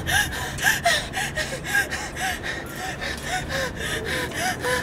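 A girl gasping in quick, voiced breaths, about three a second without a break, like someone hyperventilating.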